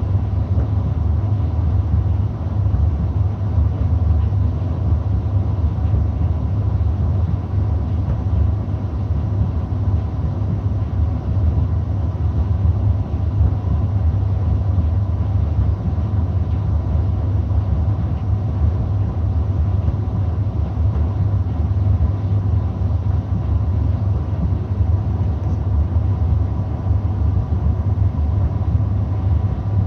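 Gorenje D85F65T heat-pump tumble dryer running, a steady low rumble with a faint thin tone above it and no change in level.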